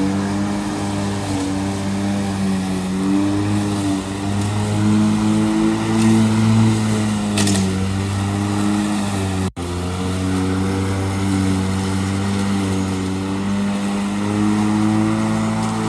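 Greenworks corded electric lawn mower running under load as it is pushed through grass, a steady motor-and-blade hum whose pitch wavers slightly up and down. The sound breaks off for an instant about halfway through, then carries on.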